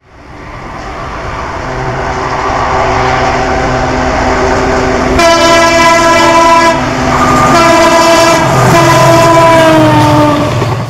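Horn of a GE WDG4G diesel freight locomotive sounding two long blasts, the first about a second and a half and the second about three seconds, the second dropping slightly in pitch near its end. Under the horn is the noise of the train running, fading in over the first couple of seconds.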